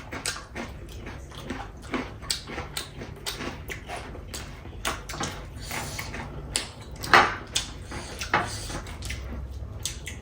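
Close-up eating sounds of chicken biryani being chewed: a quick run of short wet clicks and smacks, with one louder smack about seven seconds in.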